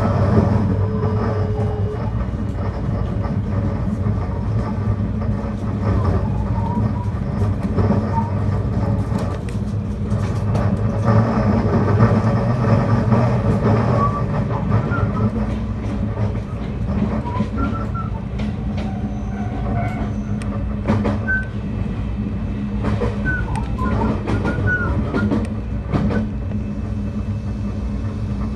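Commuter train running, heard from inside the carriage: a steady rumble of wheels and traction motors with a low hum and scattered clicks from the track.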